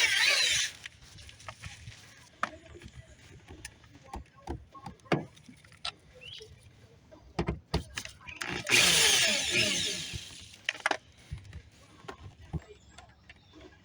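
Cordless drill/driver running in two bursts, a brief one at the start and a longer one of about two seconds near the middle, driving screws through the diffuser into the bumper, with small clicks and knocks of handling parts and tools between.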